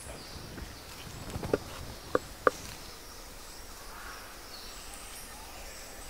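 Two sharp wooden knocks about a third of a second apart, the second slightly louder, from a wooden double-knocker box strapped to a tree. The device imitates the double-knock drumming of Campephilus woodpeckers to call them in. A few fainter clicks come just before.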